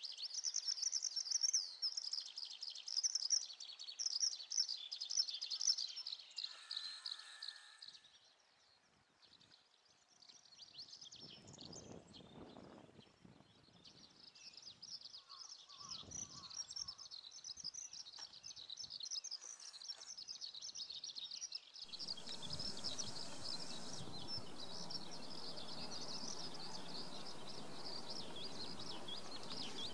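Many small birds chirping and singing together in a dense morning chorus, thinning out for a few seconds partway through. About two-thirds of the way in, a steady rushing background noise starts suddenly and carries on under the birdsong.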